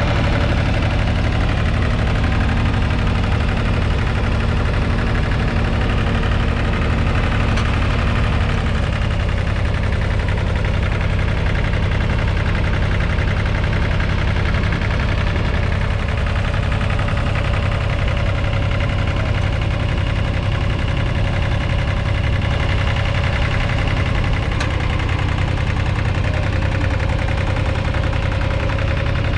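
Massey Ferguson 1010 compact tractor's 0.9-litre three-cylinder diesel engine running steadily under load while pulling a single-furrow plough through the soil.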